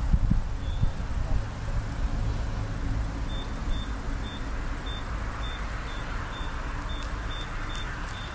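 Short high-pitched electronic beeps repeating about twice a second, starting a few seconds in, over a steady low rumble.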